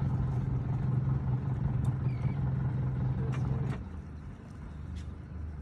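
A steady low motor hum over a low rumble, cutting off suddenly about three and a half seconds in and leaving only the low rumble.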